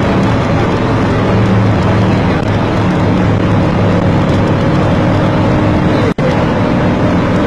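Steady vehicle engine hum with road and wind noise, heard from a moving vehicle. The sound cuts out for a split second about six seconds in.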